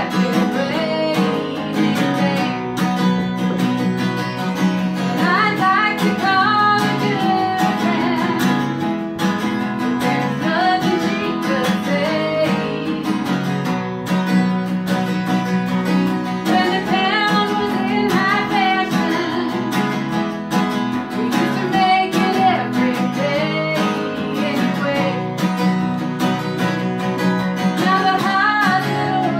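Live acoustic music: a steel-string acoustic guitar strummed steadily, with sung phrases coming and going over it.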